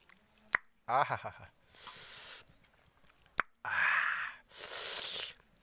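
A man reacting to the tingling heat of red ant chutney in his mouth: a short voiced exclamation about a second in, then three hard hissing breaths drawn and blown through an open mouth, with a couple of sharp mouth clicks.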